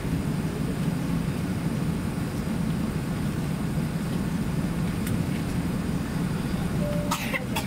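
Steady low rumble inside an Airbus A380-800 cabin as it taxis: the engines at taxi power and the cabin air. Near the end comes a short clatter from inside the cabin.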